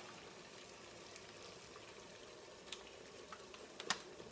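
Water at a rolling boil in a large stockpot, a steady, low-level bubbling hiss, with a few light clicks in the last second and a half.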